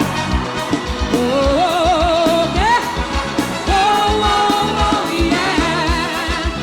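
Live forró band music: a melody in long, wavering notes over a steady kick-drum beat and bass.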